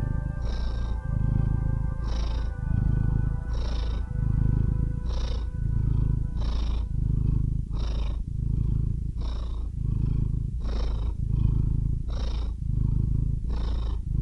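Cat purring close up: a steady low rumble that swells and breaks with each breath, about every one and a half seconds. A soft sustained music chord fades out about halfway through.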